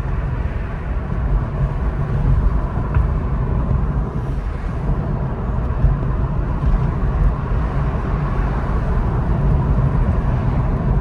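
Tesla electric car driving with its windows down: steady road and wind noise, mostly a low rumble.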